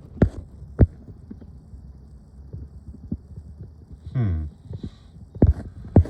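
A few sharp, separate knocks, with a short creak-like sound falling in pitch about four seconds in.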